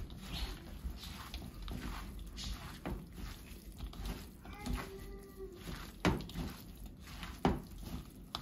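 Plastic-gloved hands mixing chopped pork, chilies and onion dressed in hot mustard oil in a bowl by hand: wet, irregular squishing and rustling, with two sharper knocks in the second half.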